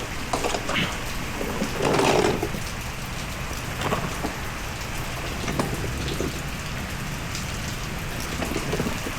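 Antifreeze splashing and trickling from the radiator drain plug into a drain pan, a steady patter, with a few light knocks and one louder splash or clunk about two seconds in.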